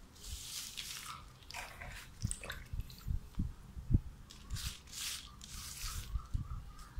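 Wet squelching and rustling of finely chopped leafy greens being squeezed and pressed down by hand into water and molasses in a plastic fermenting bucket, with irregular soft knocks against the bucket, as the greens are pushed under the liquid for fermented plant juice.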